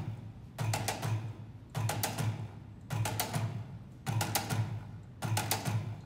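Robotic percussion machines playing a looping rhythmic pattern. Clusters of sharp mechanical clicks and knocks over low thuds repeat a little more than once a second.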